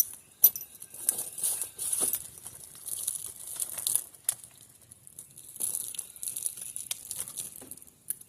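Soapy hands being rubbed and scrubbed together in irregular wet strokes, quieter near the end.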